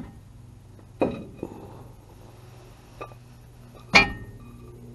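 Cast-iron brake rotor and hub of a Corvette C3 being worked off the spindle by hand: a few metal clunks and clinks, the loudest about four seconds in with a short ring.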